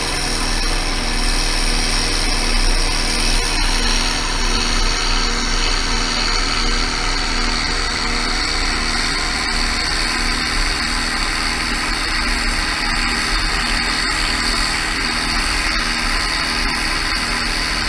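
A tractor engine and a towed airblast orchard sprayer running steadily, the sprayer's fan blowing oil spray into apple trees. A high rushing hiss of air and spray grows stronger about four seconds in.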